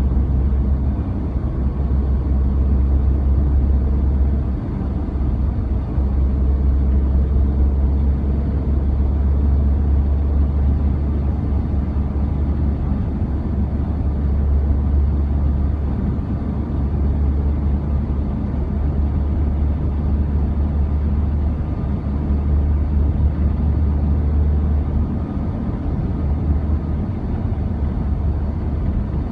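Steady low rumble of a car travelling at speed, heard from inside the cabin: engine and tyre noise.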